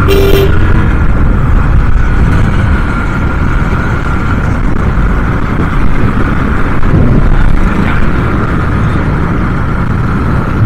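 Wind rushing steadily over the microphone while a Bajaj Pulsar NS160 is ridden, with the motorcycle's single-cylinder engine running underneath.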